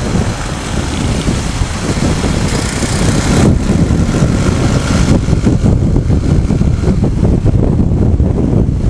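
Motorcycle riding on the road: wind buffeting the action camera's microphone as a low rumble, over the running engine of a Rusi SSV200.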